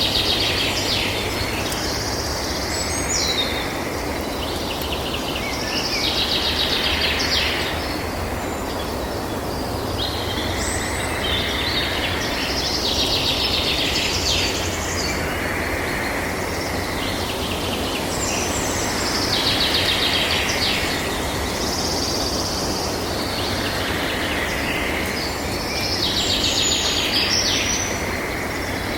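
Forest ambience: birds singing in repeated high, trilling phrases every few seconds over a steady background hiss.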